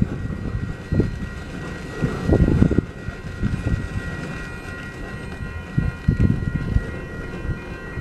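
The last cars of a loaded coal train rolling through a road crossing: wheels clatter and thump over the crossing rails in uneven heavy clumps over a low rumble. A steady high ringing tone sounds above them.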